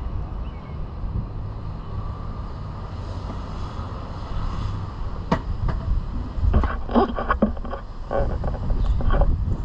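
Longboard rolling on pavement on 85 mm Orangatang Caguama wheels: a steady low rumble, with a run of sharp clacks in the second half.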